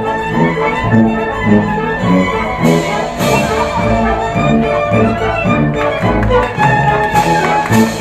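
Orchestra playing, with bowed strings (violins and cellos) to the fore and notes changing in a steady rhythm.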